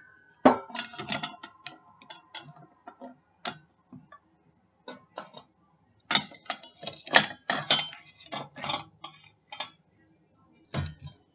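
Chicken pieces being loaded into a metal air fryer basket: irregular clusters of clinks and knocks of utensils and metal, with a brief faint ringing near the start.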